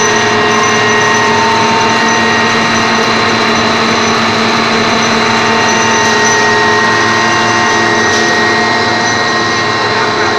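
Steel wire drawing machines running: a loud, steady mechanical drone with several steady high whines from the motors and capstans.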